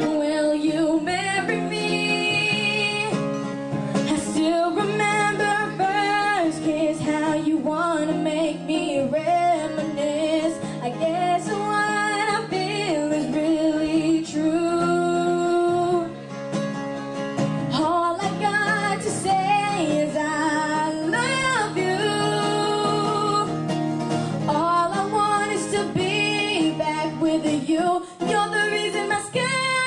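A woman singing into a microphone, accompanied by an acoustic guitar, with some long held notes.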